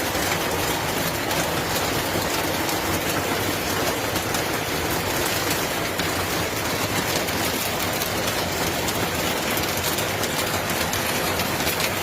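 Heavy monsoon rain falling, a steady dense hiss with a fine crackle of drops.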